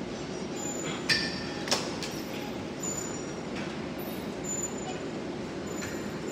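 Weight-room background noise: a steady hum of the room, broken a little over a second in by two sharp metal clanks of gym weights about half a second apart, the first ringing briefly.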